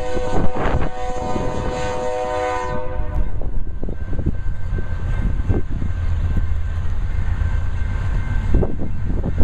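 Air horn of a BNSF GE C44-9W (Dash 9) lead locomotive sounding one long chord for about three seconds, then the approaching freight train's low rumble with wind gusting on the microphone.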